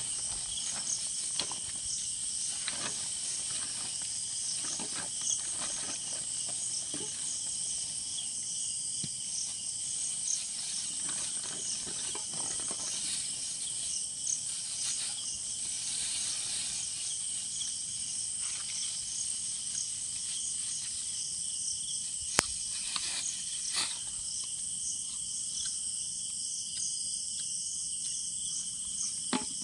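Steady chorus of night insects, mostly crickets, chirring in several high bands, with occasional soft rustles and knocks of things being handled on the ground and one sharp click about twenty-two seconds in.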